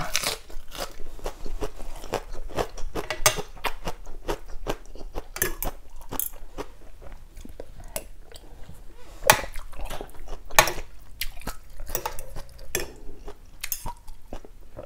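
Close-miked eating: crunchy chewing of a fresh lettuce leaf wrap, mixed with a spoon and fork clinking against a soup bowl, as a series of sharp irregular clicks, two louder ones about two-thirds of the way through.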